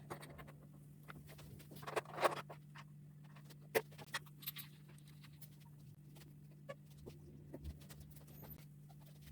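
Scattered light clicks and knocks of parts and tools being handled, with a cluster of louder knocks about two seconds in, over a steady low hum.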